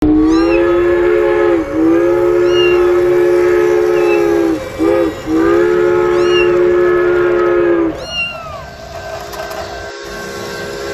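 A train horn sounds a chord of several tones in three long blasts, the last breaking off about eight seconds in, then continues as a fainter steady tone. A kitten gives short, high, falling mews every second or two throughout.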